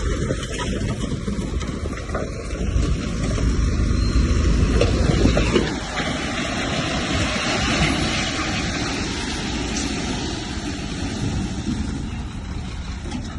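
Heavy earthmoving machinery running, a diesel engine's rough rumble under a steady rushing noise; the deep rumble drops back about five and a half seconds in.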